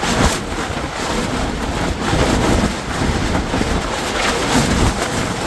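Wind buffeting the microphone: a loud, steady rushing noise, heaviest in the low end, swelling and easing a little in gusts.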